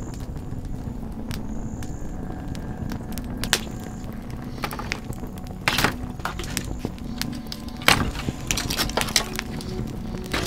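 Campfire of dry outback wood crackling, with sharp snaps and pops about 6 and 8 seconds in as a dead branch is laid on the flames.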